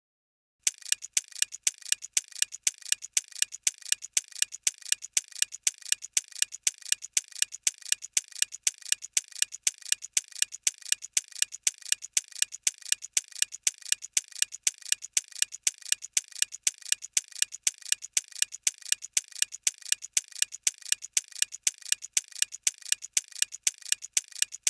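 Clock ticking sound effect used as a countdown timer for quiz thinking time: a steady, even run of sharp ticks, a few a second, starting about half a second in.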